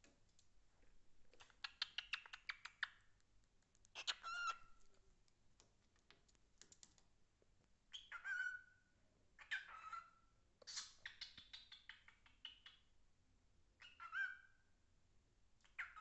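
Pet cockatiel calling excitedly: bursts of rapid clicking chatter alternate with short whistled notes that slide down and hold, five times or so.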